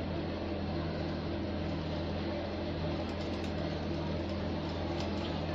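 Electric mixer running steadily, beating cake batter, with a few faint ticks in the second half.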